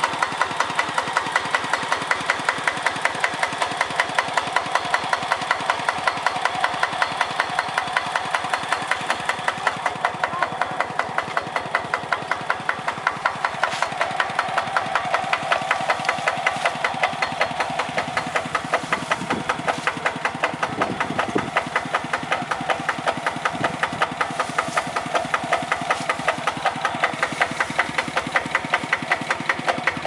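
Small engine idling, running with a steady, rapid knocking beat that keeps an even pace throughout.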